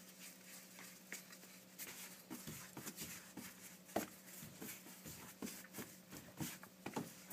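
Hands kneading soft flour dough on a floured table: irregular soft pats, presses and scuffs, with a sharper knock about four seconds in.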